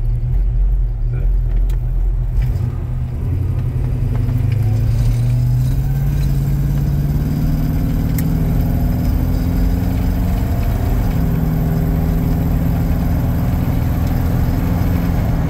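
Engine of a 1940s Chevrolet pickup on an Art Morrison chassis, heard from inside the cab on the move. Its pitch climbs as the truck accelerates, then holds steady at cruising speed, with road rumble underneath.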